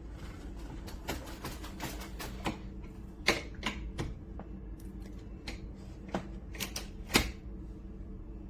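An irregular series of sharp clicks and knocks, the loudest two about three and seven seconds in, over a steady low hum.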